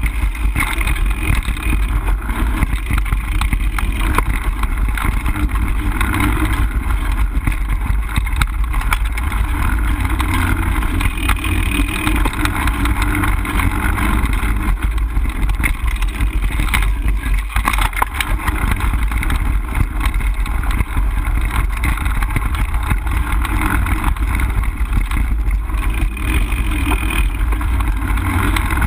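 Mountain bike ridden along a dirt singletrack trail: a steady rumble of wind and motion on the camera's microphone, with tyre noise on the dirt and frequent small clicks and rattles from the bike jolting over bumps.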